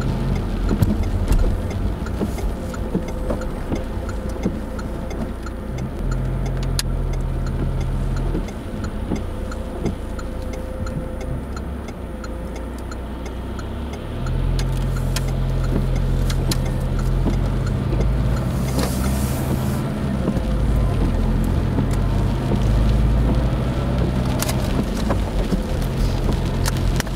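Car cabin sound while driving on a wet road: a low engine and road rumble that drops back through the middle and picks up again from about halfway, with tyre hiss and scattered light ticks. A short louder hiss comes about two-thirds of the way through.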